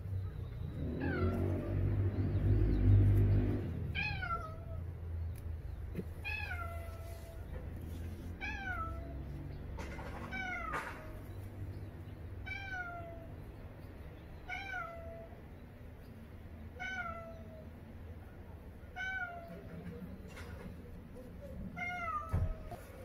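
A cat meowing over and over, a short falling mew about every two seconds. A louder low rumbling noise fills the first few seconds.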